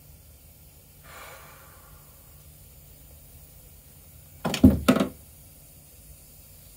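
A person's tired breathing: a soft breath about a second in, then a loud, heavy exhale in two quick pushes a little past halfway, from heat and exhaustion.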